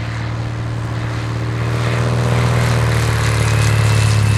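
Cessna 182 single-engine propeller airplane flying past low on a landing approach, its engine and propeller drone growing steadily louder, the pitch sagging slightly in the second half as it goes by.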